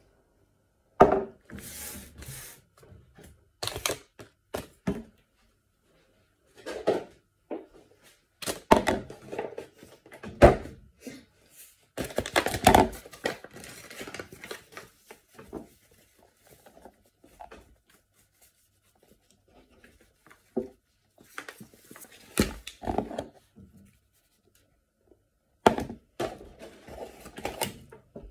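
Food prep at a kitchen worktop: a paper bag crinkling and tearing, packets and jars knocked down on the counter, and liquid poured from a plastic milk bottle into a plastic tub near the end.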